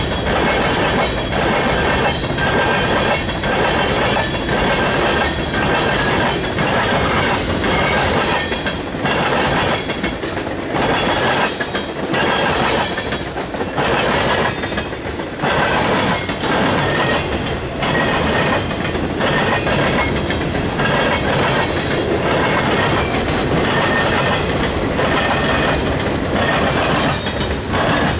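Union Pacific train's cars rolling past at close range, a continuous rumble of wheels on rail with a regular clickety-clack about once a second and a thin high wheel squeal over it.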